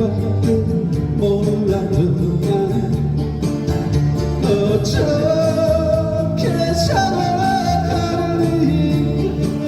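Live band music: strummed guitar over bass and a steady beat, with a melody line that holds long notes in the second half.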